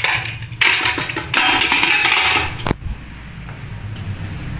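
A metal ladle stirring and scraping in a pressure cooker of potato curry, in a few rough bursts, ending with a single sharp clink about two and a half seconds in.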